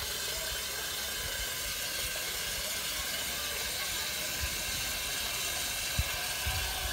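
Water running from an outdoor tap into a plastic chicken drinker, a steady hiss. There is a single short knock about six seconds in.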